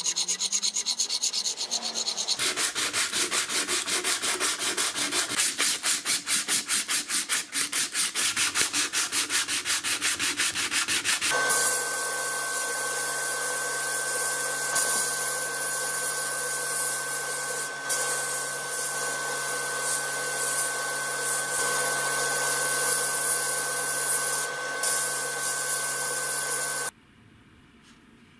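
A hand file scraping back and forth in quick, even strokes across a handle of walnut wood and aluminium spacers clamped in a vise. About 11 s in this gives way to a sandblasting gun hissing steadily in a blast cabinet, with a steady hum and a steady tone, until it cuts off suddenly near the end.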